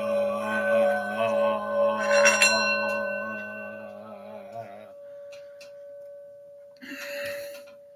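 Metal singing bowl ringing, several steady tones with a wavering, beating hum and a light strike about two seconds in. About five seconds in the lower tones cut off suddenly, leaving a single tone ringing on, with a brief noisy rustle near the end.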